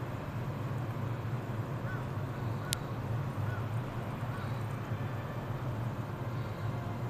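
JR 115-series electric train standing at the platform with a steady low hum from its running equipment, waiting to depart. A few faint bird calls come a couple of seconds in, and there is one sharp click a little under three seconds in.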